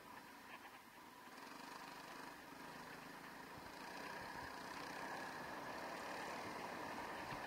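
Dirt bike engine running, growing louder about four seconds in.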